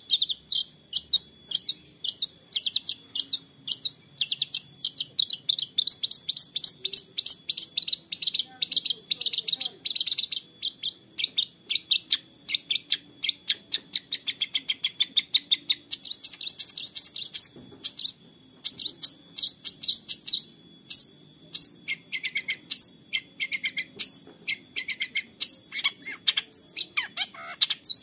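Long-tailed shrike singing a fast run of short, high chattering notes, many a second. About halfway through, the notes grow spaced out and swoop downward, a few dropping much lower near the end.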